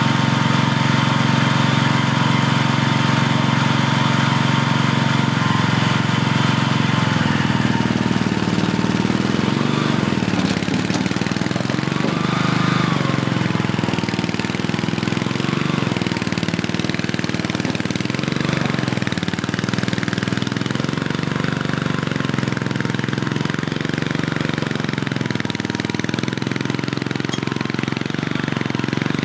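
A small stand-on mini loader's engine runs loud and steady, its note wavering up and down from about a third of the way in as the loader lifts and tips its bucket.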